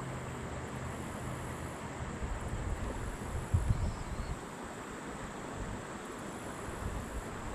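Wind buffeting the microphone: a steady noise with low rumbling gusts, the strongest about three and a half seconds in.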